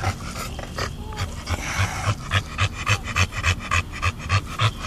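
Dog panting hard with its tongue out, fast and even at about four breaths a second, the rhythm settling into a regular beat about two seconds in.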